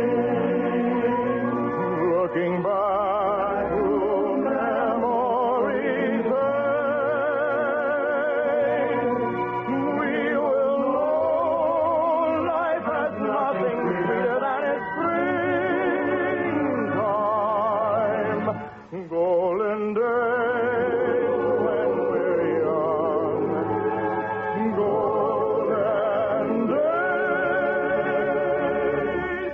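Operetta singing with strong vibrato over musical accompaniment, with a brief break in the music about 19 seconds in. It is heard as an old radio-broadcast recording, with no high treble.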